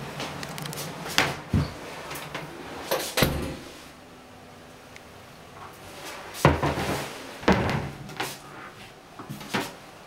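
Hinged doors of a built-in wooden cabinet being opened and shut, with a series of sharp clicks and knocks from the latches and door panels.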